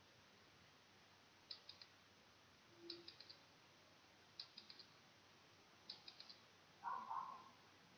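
Quiz countdown-timer ticking sound effect: four groups of quick clicks about a second and a half apart, each a sharp click followed by three lighter ones. A brief, louder noisy burst comes near the end.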